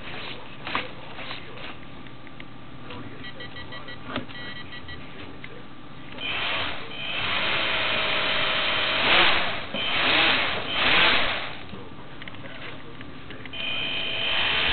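Small electric motors and propellers of a toy RC B-29 bomber whirring as the throttle is run up. They start about six seconds in, surge twice, drop back near twelve seconds and start again near the end, with a few faint clicks before the first run-up.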